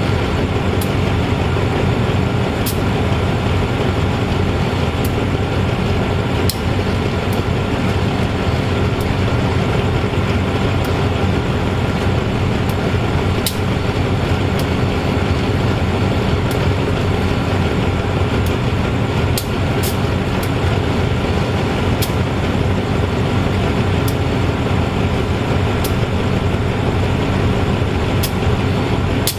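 GE-A class diesel-electric locomotive idling steadily while standing, a constant low engine rumble with a thin steady whine over it and occasional faint sharp ticks.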